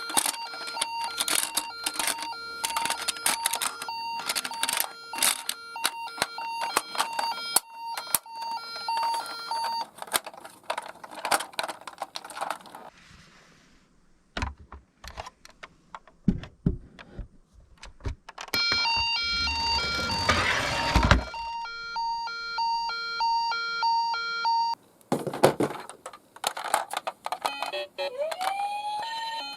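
A two-tone ambulance siren repeating its hi-lo beeping over the clicking and clattering of die-cast toy ambulances rolling down a slope. Midway the siren drops out among a few knocks, then comes back with a rolling rush of the cars. Near the end a rising siren wail starts.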